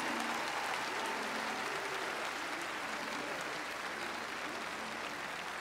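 Huge open-air festival crowd applauding and cheering, with scattered shouts in the mass of clapping, easing off slightly toward the end.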